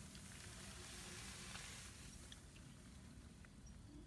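Faint outdoor ambience: a soft, even hiss that thins out about halfway through, with a few faint clicks and short high chirps.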